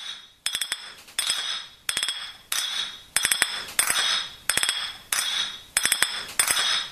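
Bright metallic clinking and jangling in a steady beat, one burst about every two-thirds of a second, each ringing away before the next.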